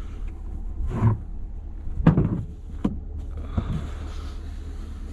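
A steady low vehicle hum with a few handling knocks and rustles over it, the loudest about two seconds in, followed by a soft hiss near the end.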